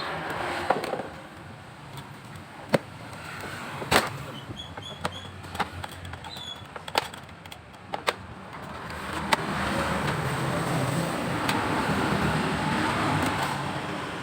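Scattered metallic clinks and knocks of tools and parts being handled on a scooter, then a steady rumbling mechanical noise that comes up about nine seconds in and holds to the end.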